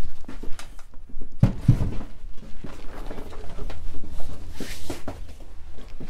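Workshop handling noises: scattered knocks and clicks, with two dull thumps about a second and a half in. About four and a half seconds in comes a rustle as a large sheet of foam padding is shaken out and spread over the bench.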